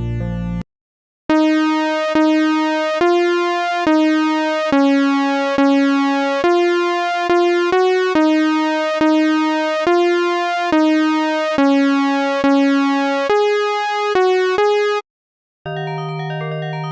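Synthesizer music: a simple melody of single electronic notes, about one a second, each with a sharp attack that decays. A chord cuts off just before it starts, and another layered synth passage begins near the end after a brief gap.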